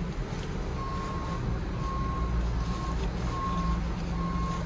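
Short electronic beeps on one steady pitch, starting about a second in and repeating roughly once a second, over a low steady engine rumble.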